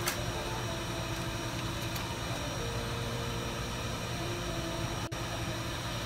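Steady fan-like whirring hiss with a faint hum, with a brief click right at the start.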